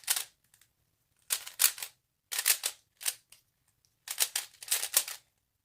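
Plastic 3x3 speed cube being turned quickly by hand: short bursts of rapid clicking layer turns, about five clusters with brief pauses between them.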